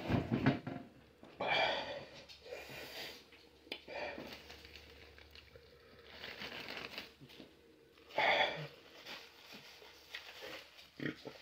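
A man huffing, wheezing and sniffing in short, noisy breaths as his mouth burns from a super-hot pepper chip. The loudest breaths come right at the start and again about eight seconds in.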